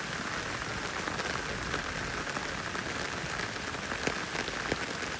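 Steady rain falling, with scattered individual drops striking close by.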